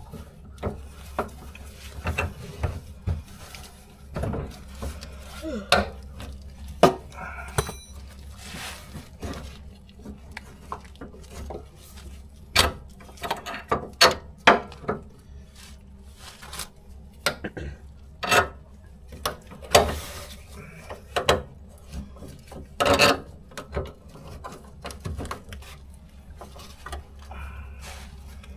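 Irregular metallic clanks, knocks and scrapes of tools and metal parts as a car's fuel tank is worked up into place and fastened from underneath, with a few louder knocks about halfway through.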